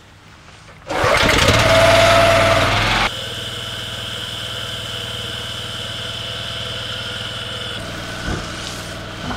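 A pressure washer's petrol engine starts up about a second in, its pitch rising as it comes up to speed, and runs loudly for about two seconds. It then cuts suddenly to a quieter steady drone.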